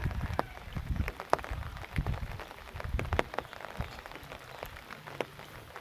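Water splashing and dripping in irregular small spatters and ticks, with soft low thumps in between.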